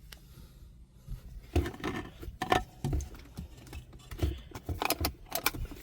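Irregular plastic clicks and knocks of a car's console trim piece, the cigarette lighter and ashtray panel, being handled and worked loose.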